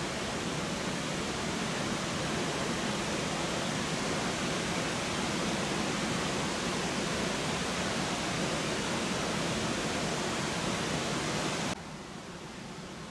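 Waterfall rushing as a steady, even wash of noise. Near the end it drops abruptly to a quieter, duller rush.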